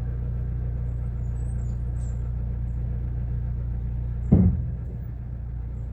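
Steady low rumble with one loud thump a little over four seconds in.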